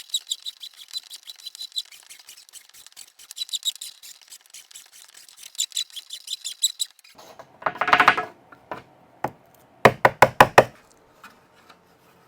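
Hand file rasping on a fiberglass fairing in quick, evenly repeated strokes, which stop about seven seconds in. A short scrape and a few sharp knocks follow.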